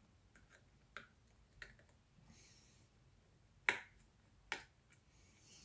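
Small, sharp clicks and ticks of a precision screwdriver and metal parts on the open iPhone 7 Plus's front camera and earpiece bracket. There are a few faint ticks, then two louder clicks under a second apart in the second half, with brief soft scraping between them.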